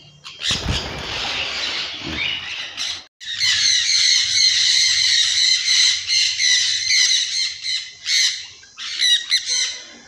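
Sun conures squawking and screeching. A harsh burst comes first. After a brief break about three seconds in, many shrill calls overlap in a continuous din, breaking into separate squawks near the end.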